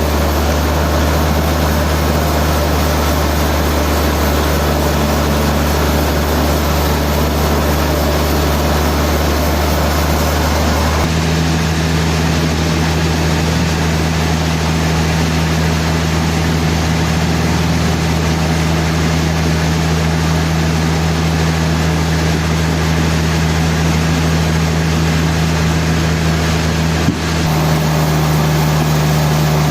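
Sawmill machinery running with a steady, loud low hum and drone. The drone shifts abruptly about eleven seconds in and again near the end, with a brief click just before the second change.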